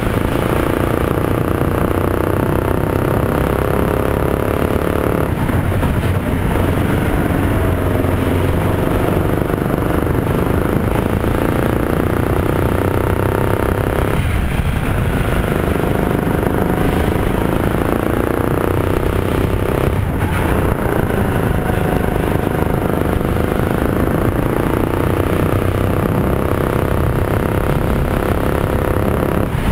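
Rental kart's Yamaha MZ200 single-cylinder four-stroke engine running hard on a lap. Its pitch drops sharply about five, fourteen and twenty seconds in as the driver lifts off for corners, then climbs steadily back up as it accelerates.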